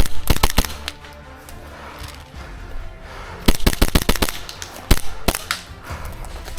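Airsoft guns firing rapid strings of sharp cracks: a quick burst at the start, a longer burst of about eight shots about three and a half seconds in, then two single shots.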